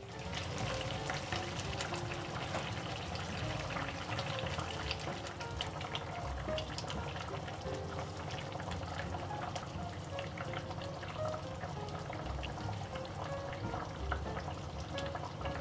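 Soya-chunk curry gravy bubbling in an uncovered steel pot: a dense, steady patter of small pops, with soft background music underneath.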